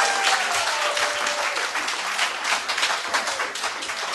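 Audience applauding steadily in a meeting room. A single long drawn-out call rises above the clapping during the first second and a half.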